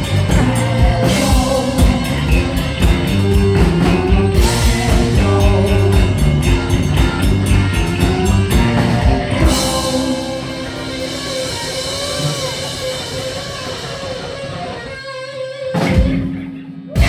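Heavy metal band playing live with drums and distorted electric guitar. About ten seconds in, the pounding drums drop away, leaving held guitar notes ringing. Near the end the band almost stops, and one loud hit follows.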